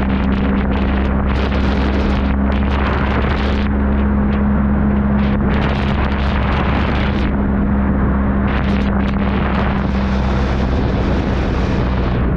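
Motorcycle engine running at a steady cruise, a constant low hum, under wind rushing over the microphone that swells and fades in gusts.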